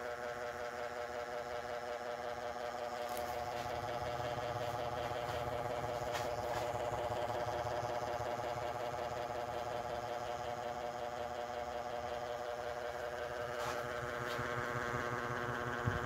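Small 28-inch Niga mini ceiling fan running at speed: a steady motor hum made of several even tones over a low rush of air, with a few faint ticks.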